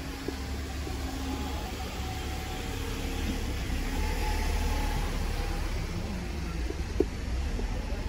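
Street traffic: a steady low rumble with a passing vehicle that swells around the middle and fades, and a single small click near the end.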